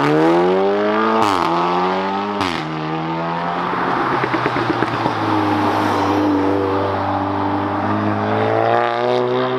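Straight-piped Audi TTS's turbocharged four-cylinder engine accelerating hard: the revs rise twice, each climb ending in a quick upshift with a sharp crack from the exhaust. It then pulls on at lower revs with a short run of crackles, picking up again near the end.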